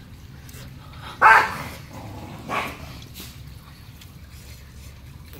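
A dog barking twice: a loud bark about a second in and a weaker one a second or so later.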